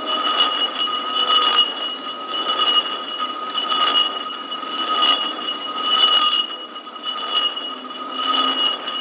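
Aluminium alloy wheel dragged face-down across concrete, scraping and ringing with a steady high metallic tone, the grinding swelling about once a second; the scraping is gouging curb-rash-style damage into the wheel face and spokes.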